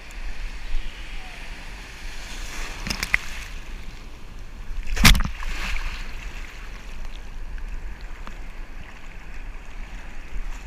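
Sea surf washing and water sloshing around a camera held at the waterline, with a steady low rumble of water and wind buffeting the microphone. A sharp splash about five seconds in.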